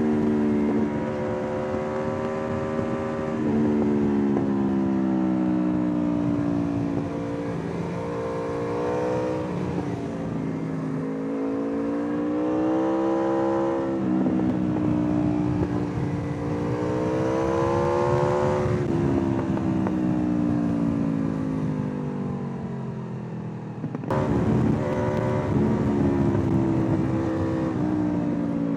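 Aprilia RSV4 R's 65° V4 engine under way, its note climbing under throttle and falling as it rolls off, several times over, with wind noise over the rider-mounted microphone. About 24 seconds in the sound drops briefly and then jumps back louder.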